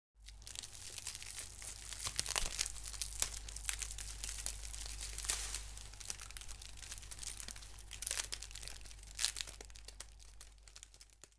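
Foley crackling and crinkling: wicker creaking and rustled magnetic tape worked by hand to imitate a donkey munching a straw hat, with several sharper crackles over a low steady hum.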